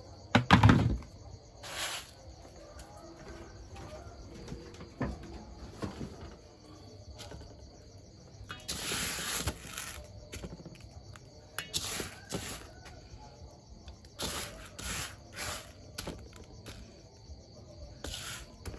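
Insects, likely crickets, chirring steadily at a high pitch in the background, broken by irregular short noisy rustles and knocks, with a heavier thump about half a second in.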